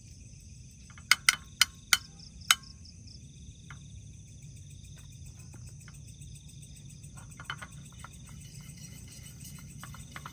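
Five sharp taps close together about a second in, a utensil knocking against the frying pan or tub as the spread is put into the pan. Softer clicks and scrapes follow near the end as it is brushed around the pan. Under everything, a steady pulsing night chorus of frogs and insects.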